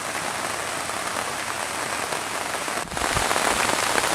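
Heavy rain falling, a dense steady patter; about three seconds in it cuts abruptly to a louder, closer patter with a low rumble underneath.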